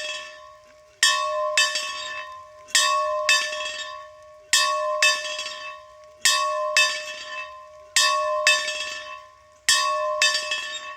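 A bell being rung, struck in pairs about half a second apart, with a new pair roughly every second and three-quarters. Each strike rings out with clear overtones and fades away before the next pair; there are six pairs in all.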